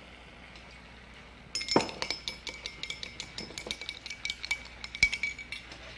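A spoon stirring fast in a Fire-King glass measuring cup, clinking against the glass in a rapid ringing run that starts about a second and a half in and stops near the end: cornstarch being mixed into red wine as a thickener for a pan sauce.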